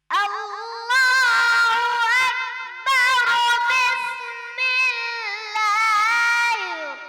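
A young boy reciting the Quran in a melodic, chanted style, holding long wavering notes with ornamented turns between phrases. The voice starts abruptly out of silence.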